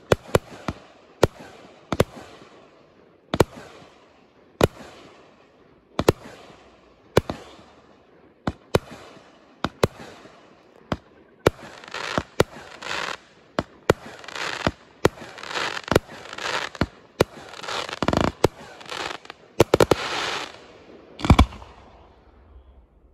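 Aerial firework shells bursting one after another with sharp bangs, at first about once a second. From about halfway on they come closer together, with a crackling wash between the bangs, and a last loud bang comes near the end.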